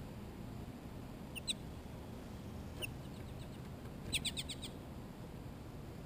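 White-breasted nuthatch calling with short, high notes. There are two notes about a second and a half in and a single note near three seconds. Just after four seconds comes a quick run of about six notes.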